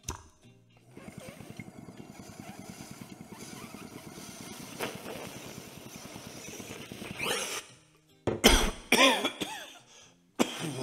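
A person draws a long, bubbling hit from a bong, then coughs hard in several loud bursts.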